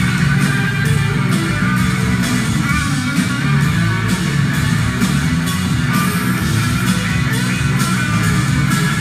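Live rock band playing: electric guitars and drums with a steady beat, heard loud from the audience.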